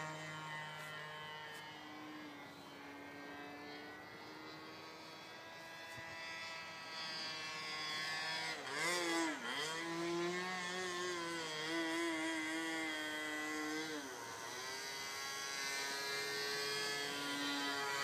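Seagull 40 RC model airplane's engine running in flight, a steady drone whose pitch wanders as the plane turns. About halfway through the pitch dips sharply and climbs back, and it drops briefly again a few seconds later.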